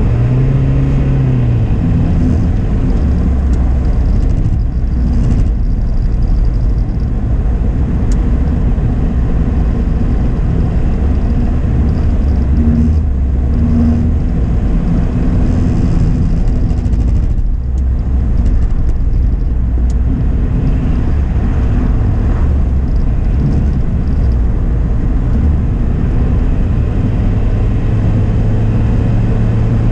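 A car driving at steady speed, heard from inside the cabin: a continuous low engine hum mixed with tyre and road noise.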